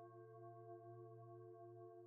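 Faint, sustained singing-bowl tones: several held pitches ringing together with a slow wavering pulse, over a low steady hum.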